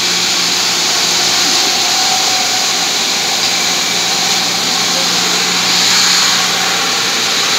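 Electric-motor-driven vertical water pumps running: a loud, steady mechanical whir and hiss with a constant low hum.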